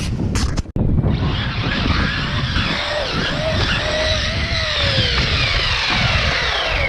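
Electric motors of radio-controlled Traxxas Slash trucks whining, several pitches rising and falling with throttle, over rumbling tyre and dirt noise. The sound breaks off for an instant under a second in.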